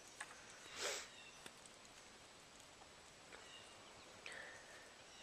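Quiet outdoor background with a few faint, short bird calls in the second half, one sliding down in pitch. There is a brief soft whoosh about a second in.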